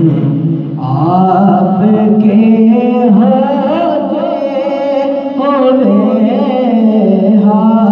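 A man singing an Urdu naat into a microphone: a slow, ornamented devotional melody with long notes that glide up and down.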